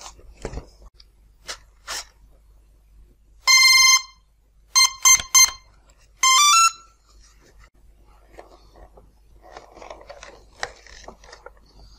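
Electronic speed controller of a brushless model-aircraft motor beeping as the battery is connected: one long tone, three short beeps, the usual count for a three-cell pack, then a quick rising run of tones. Light handling rustles and clicks around it.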